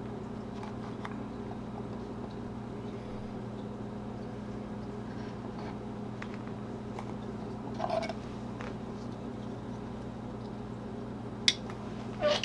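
Handling noise from a leather sheath and a folding knife being moved off a wooden slab: a few faint clicks, a short rustle, and a sharp click near the end. A steady low hum runs underneath.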